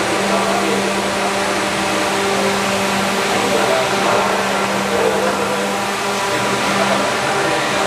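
Pacific PSE-36 electric steam boiler running during a demonstration cycle: a steady hissing rush with a constant low hum.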